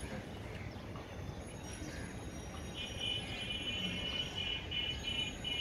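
Steady low rumble of city background, and about halfway through a high, rapidly pulsing chirping call that runs on for a few seconds.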